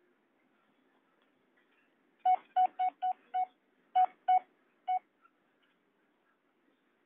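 Keypad beeps from a handheld airband radio scanner as a frequency is keyed in: eight short beeps, all the same pitch, five in a quick run and then three more spaced out.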